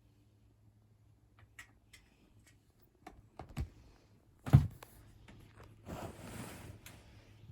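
A cat scrabbling at the side of a bed as it tries to climb up: a few soft knocks, one sharp thump about halfway through, then a stretch of scratchy rustling of claws and paws on the bedding.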